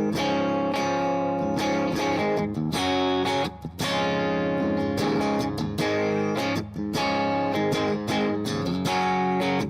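Custom electric guitar with Mojo Goldfoil humbuckers, both pickups on in the middle position, playing ringing chords with a couple of brief breaks.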